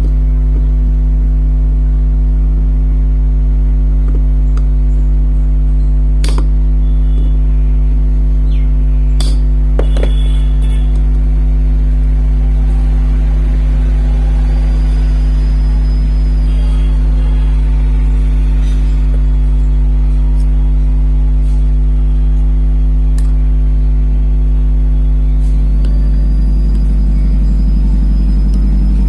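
Loud, steady 50 Hz electrical mains hum with its overtones, broken by a few light clicks and taps.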